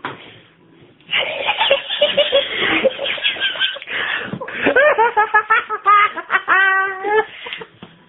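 Hearty human laughter starting about a second in, in quick repeated peals that turn high-pitched toward the end.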